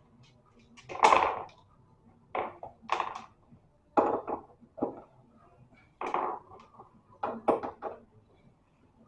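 Irregular knocks and clunks, about ten short bangs and rattles a second or so apart, as of a washing machine's motor and metal parts being handled and fitted.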